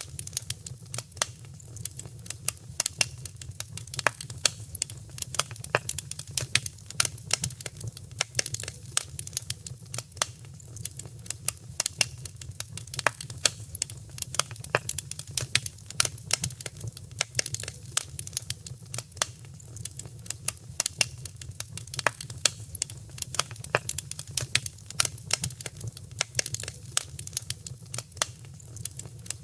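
Wood fire crackling in a fireplace: dense, irregular pops and snaps over a steady low rumble of the burning fire.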